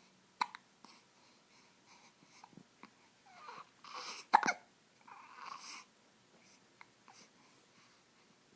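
Sharp hiccups: a short one about half a second in and a much louder one about four seconds in, with breathing sounds around it.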